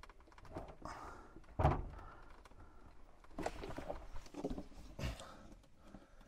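Hand-tightening a hose fitting onto an RV water pump: scattered knocks, rubbing and clunks of the hoses and plastic fittings being handled. The loudest is a single thump about one and a half seconds in.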